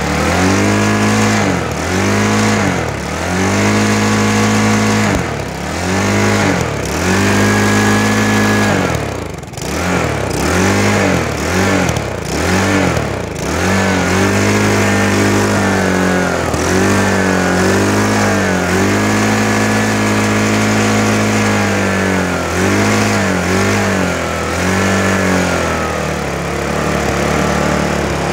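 2002 Briggs & Stratton 450 series single-cylinder lawn mower engine, its compression raised to about 210 psi, running with the engine speed repeatedly dropping and climbing back. The dips come quickly one after another between about nine and thirteen seconds in, then it runs more steadily with a few more dips near the end.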